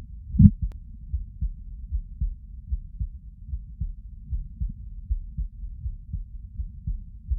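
Human heartbeat heard through the chest: steady, muffled double thuds (lub-dub), about four beats every three seconds. A louder knock comes about half a second in.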